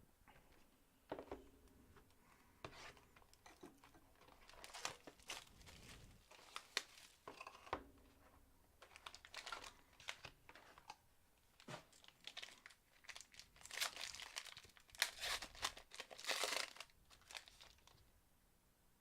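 Crinkling and tearing of a trading-card pack wrapper being opened and handled, in irregular bursts, busiest near the end.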